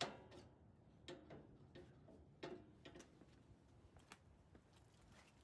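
Faint, irregular metal clicks and ticks, about ten in all, from a snowblower's steel discharge chute rod being slid forward through its bracket at the chute rotation gear and its retaining clip being fitted.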